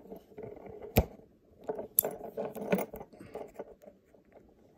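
Metal clicks and light rattling from an Empire six-lever brass padlock, its chain and its push key as the key is worked into the lock's slot. A sharp click comes about a second in, another near two seconds, then a run of smaller clicks.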